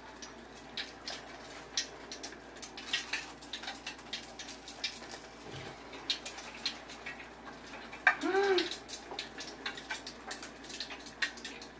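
Hot cooking oil in a small pot crackling and popping, with scattered irregular pops. About eight seconds in, a person makes one short hummed vocal sound that rises and falls in pitch.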